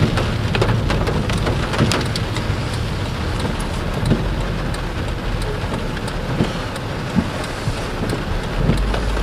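Heavy rain pattering on a moving car's windshield and roof, heard from inside the cabin, as a steady hiss full of sharp drop ticks over a low steady road rumble.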